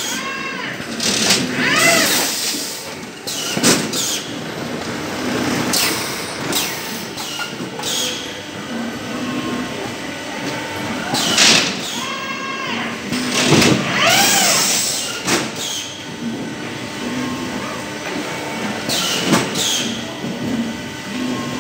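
CPS CL86 case packer and its conveyors running on an onion packing line: steady machine noise broken every second or two by short, sharp hisses and clacks of the pneumatic packing cycle. A couple of brief squeals rise and fall in pitch, about 2 seconds in and again near the middle.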